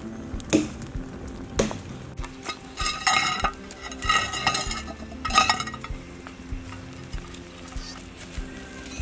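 A metal knife blade knocking and scraping against a clay pot lid as the lid is pried off the cooking jar: two dull knocks, then three spells of ringing clinks between about three and five and a half seconds in.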